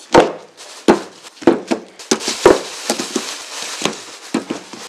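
Foil-wrapped blocks of butter set down and stacked one after another on a table: a series of soft, uneven knocks, with the wrappers crinkling as they are handled.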